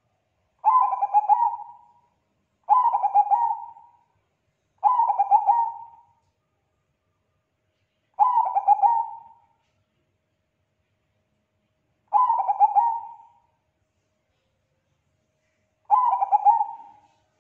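Bangkok-strain zebra dove (perkutut) cooing: six rolling, trilled coo phrases, each about a second and a half long and fading at the end, with pauses of one to three seconds between them.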